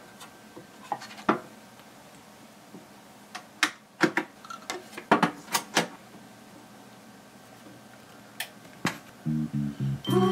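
Clicks and knocks of a vinyl record being handled on a turntable: the 45 set on the platter and the tonearm moved and lowered onto it. Near the end the record starts playing music with a rhythmic beat.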